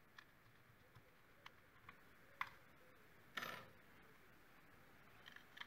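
Faint light clicks and taps of hands handling a 3D-printed plastic bulkhead with a connector mounted on it, with a brief scrape about three and a half seconds in.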